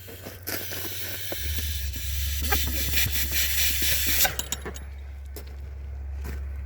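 Air hissing hard for about four seconds as the vacuum hose is pulled off the manhole test fitting, then cutting off sharply with a few clicks. A vacuum pump's engine runs steadily underneath.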